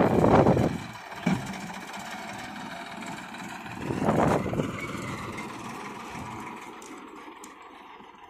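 Sonalika tractor's diesel engine pulling a loaded trailer of earth, loud at first, surging briefly about four seconds in, then fading as the tractor moves away.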